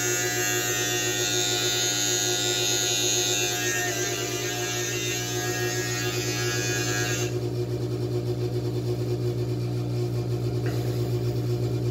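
Electric beard trimmer running with a steady buzz, held close; a higher hiss drops away suddenly about seven seconds in while the buzz carries on.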